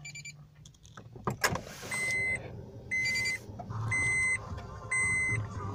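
The remote-starter unit's buzzer beeping five times, about once a second, each beep short and steady and high-pitched. The beeping is the unit's signal that it is waiting to be taught the car. A few clicks come before the beeps start, about a second in.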